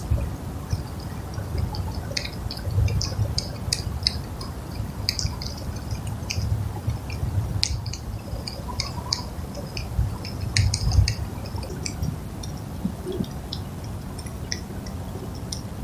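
Squirrel chewing peanuts close to the microphone: rapid, irregular wet smacking and crunching clicks, over a steady low rumble.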